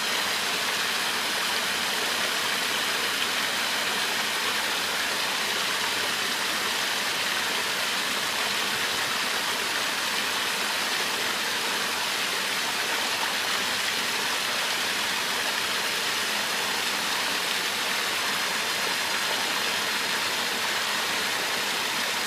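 Steady rushing of running water, an even hiss with no change in level.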